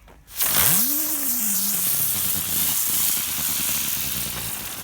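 Ground bloom flower firework spinning on the ground: a loud spraying hiss starts suddenly about half a second in, with a low whir that rises quickly as it spins up and then slowly sinks, dying away near the end.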